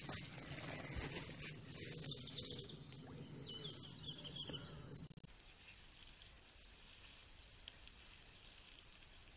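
Low outdoor background noise with a rapid, high-pitched chirping trill for a second or two about three seconds in. Just after five seconds it drops suddenly to a fainter, steady hiss.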